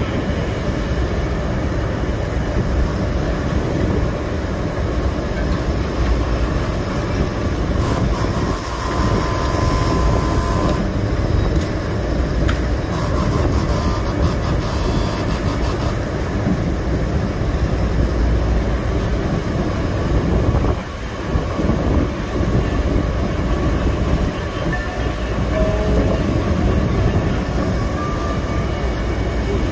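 Bucket wheel excavator and its belt conveyor running: a steady, heavy mechanical rumble with a rattling clatter. A brief higher whine rises above it about nine seconds in.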